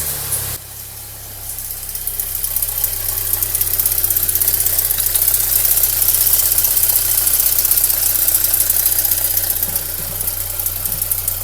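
Audi A3 petrol engine idling with a fast, dense metallic ticking from the top of the engine, which gets louder about two seconds in. The noise comes from the camshaft drive area: the mechanic suspects the chain linking the camshafts, the high-pressure fuel pump tappet or, most likely, the cam phaser.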